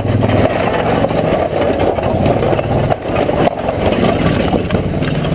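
Honda ATV engine running as the quad rides along a rough dirt track, with occasional knocks and rattles from the uneven ground.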